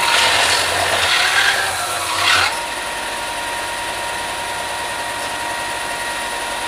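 An electric sanding machine runs steadily while metal flanges are pressed onto its abrasive surface to flatten them for a better gasket seal. A loud grinding rasp lasts about two and a half seconds and stops abruptly, and the motor keeps running freely after that.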